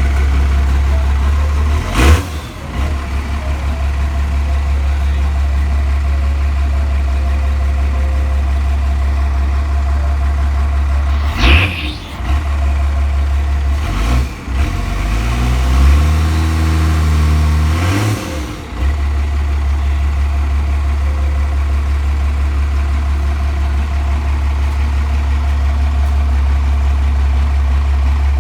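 First-generation Dodge Ram's Cummins diesel idling steadily, revved up once about two-thirds of the way through before dropping back to idle. A few sharp knocks sound over it.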